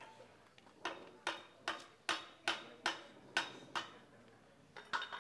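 Hammer knocking at the foot of a tall decorated pole, fixing it upright in its stand: eight sharp, ringing blows about two and a half a second, then two lighter taps near the end.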